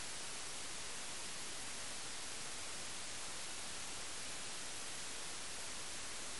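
Steady hiss of an empty audio track, with nothing else heard.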